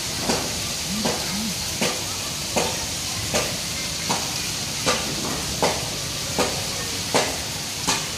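Steady rain hiss, with a sharp tick repeating evenly about every three-quarters of a second.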